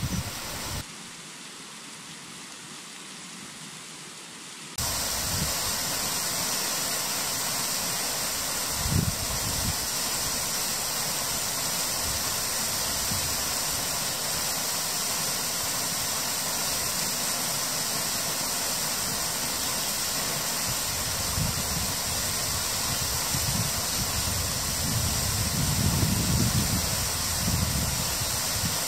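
Steady rushing of water from a river cascade, quieter for the first few seconds and then even, with a few low thumps later on.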